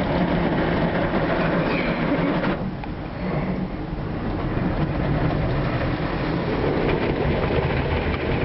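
Automatic car wash working over the car, heard from inside the cabin: a loud, steady wash of noise with a low rumble underneath. The hiss drops away for about a second around two and a half seconds in, then comes back.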